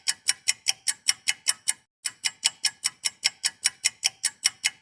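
Clock ticking sound effect: rapid, even ticks at about five a second, marking time passing, with a brief break just before two seconds in.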